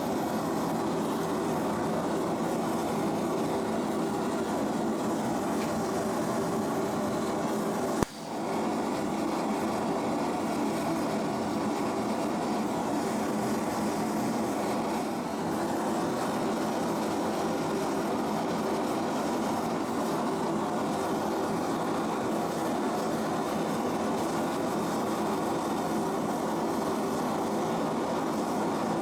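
A blacksmith's forge running with a steady, even roar while the bar heats. There is a single sharp click about eight seconds in.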